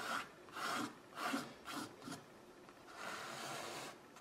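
A thumb rubbing along masking tape on a stretched canvas, pressing the tape's edge down so paint won't seep under it. It makes several short scraping strokes, then one longer stroke about three seconds in.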